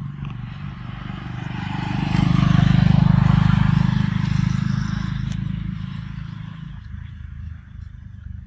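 A motor vehicle's engine passing by: it swells to its loudest a couple of seconds in, then slowly fades away.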